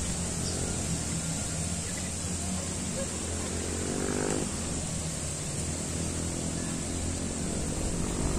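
Steady low drone of a distant engine, with a fainter pitched hum that comes in about halfway through and again near the end.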